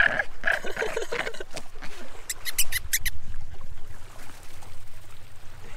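Yorkshire terrier puppy making short, high-pitched growls over and over as it tugs at a tennis ball, for about the first second and a half. Then a few sharp clicks and a low rumble.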